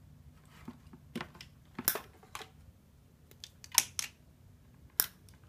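Sharp plastic clicks and handling noise from a GoPro Hero 4 Silver action camera as its battery and SD card are handled. There are about six snaps spread through, the loudest near two, four and five seconds in.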